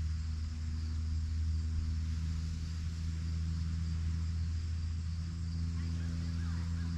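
A low, steady engine drone, its pitch shifting slightly about five seconds in, over a steady high chirring of insects; a few short bird chirps come near the end.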